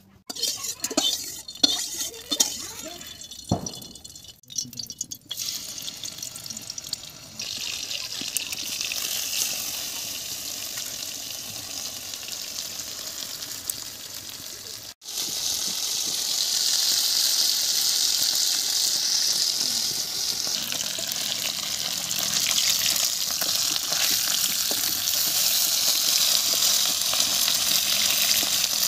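Hilsa fish frying in hot oil in a wok: a steady sizzle that becomes louder after a cut about halfway through. A few knocks and clatter come in the first few seconds.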